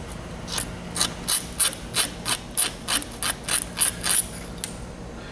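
Razor blade scraping a copper-plated steel wire in quick, regular strokes, about three to four a second, then stopping about four seconds in; the scraping bares the silver steel under the copper plating.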